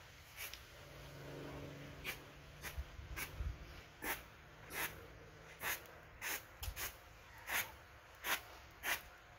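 Push broom sweeping an artificial-grass graveside mat: short scratchy brushing strokes, a little over one a second.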